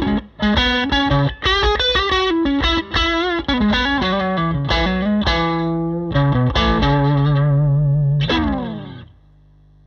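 Electric guitar played through a Bad Cat Classic Pro 20 Reverb, a 6V6-powered valve combo: a quick phrase of single notes, then a held note and a note that slides down in pitch. The playing stops about a second before the end, leaving the amp's steady low hum.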